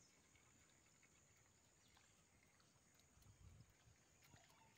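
Near silence: faint outdoor background, with a soft low rumble about three seconds in.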